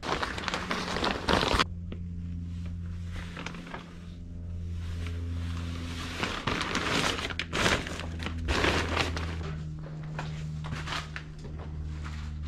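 Footsteps on a littered barn floor with scattered clunks, knocks and rustling as someone handles things, over a steady low hum.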